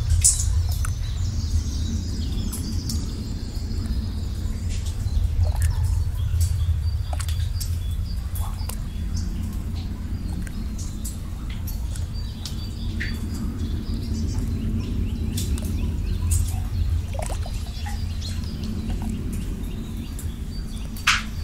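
Ambient nature soundscape: small birds chirping and calling in short high notes over a steady low rumble. Scattered short clicks are heard throughout.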